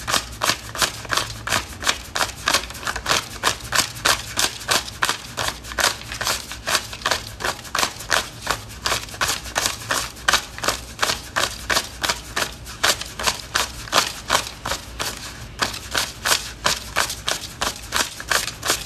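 Paper banknotes being counted by hand, each bill flicked off the stack with a crisp snap, in a steady rhythm of about three a second.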